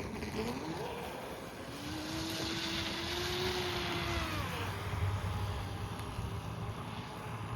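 Proboat Blackjack 26 RC catamaran's 4300 kV brushless motor whining over the water. Its pitch climbs about half a second in, holds steady with a hiss for a few seconds, then drops near the middle as the boat eases off. Wind rumbles on the microphone.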